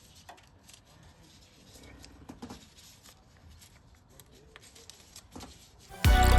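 Faint rustling and small clicks of gloved hands kneading two-part steel repair putty. Loud music starts suddenly near the end.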